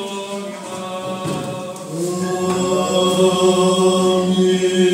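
Byzantine chant sung by voices in a Greek Orthodox church: long held notes that move slowly, growing louder about two seconds in.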